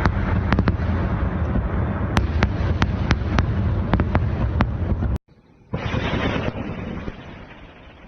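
Fireworks display: a dense, continuous rumble of booms with many sharp cracking reports. It cuts off abruptly about five seconds in, then a shorter burst follows and fades away.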